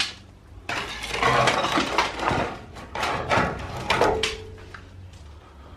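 A heavy beam being worked loose with a prying tool: about three seconds of rough scraping and knocking, fading out, with a brief creak near the end.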